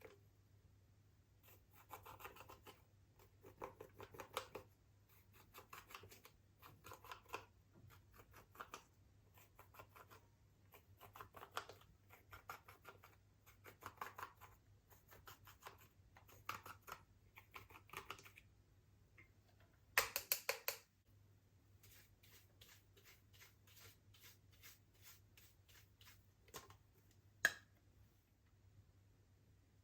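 Slime being mixed and pressed by hand, with sticky crackling clicks coming in short bursts about once a second. There is a louder burst of crackles about twenty seconds in.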